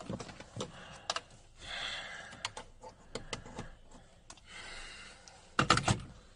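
Handling noise in a car cabin: scattered light clicks and taps, with soft rustling twice, and a cluster of louder knocks near the end.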